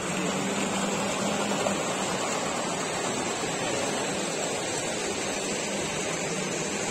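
Steady, even rushing background noise of a large hall, with a faint low hum beneath it.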